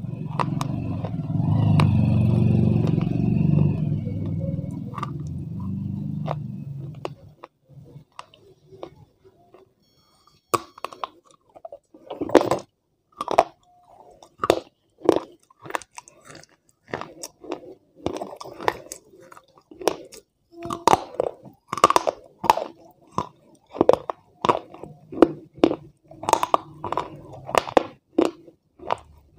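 Close-up chewing and crunching of a hard, brittle white food on a clip-on mic: sharp crisp crunches and mouth sounds, roughly two a second, from about ten seconds in. A loud low rumble fills the first several seconds.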